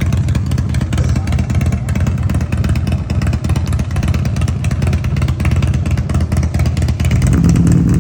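Harley-Davidson V-twin motorcycle engines running at idle with a rapid, uneven beat, getting louder near the end.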